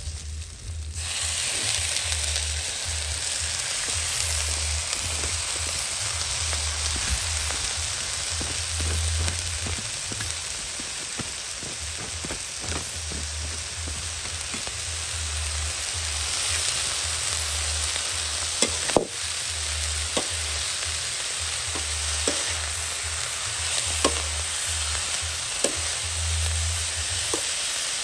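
Red ants stir-frying with chillies in a steel wok: a steady sizzle that comes in loudly about a second in, with the metal spatula scraping and clicking against the pan now and then.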